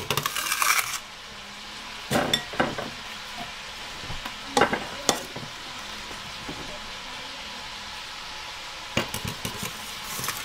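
Metal bench scraper scraping diced onion across a cutting board and tipping it into a glass bowl: a burst of scraping at the start, then scattered knocks and taps of the blade on the board and bowl, over a steady background hiss.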